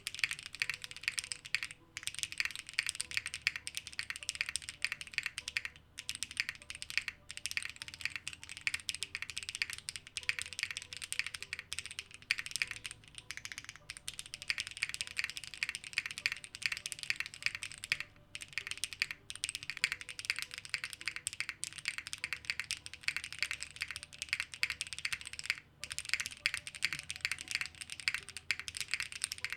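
Steady, fast typing on a custom Dune65 mechanical keyboard with Kailh BCP switches, DCS keycaps and an ABS plate, with a few short pauses. The keystrokes have a glassy, clacky character.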